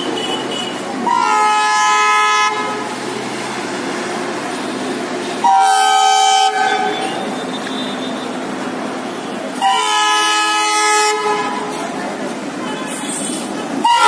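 WDM-3A diesel-electric locomotive sounding its horn in three blasts of about one to one and a half seconds each, with the approaching train's steady engine and rolling noise between them; a fourth blast begins at the very end.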